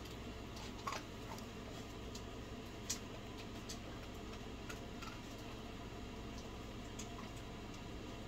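Quiet room tone with a steady low hum, broken by a few faint, isolated clicks and ticks.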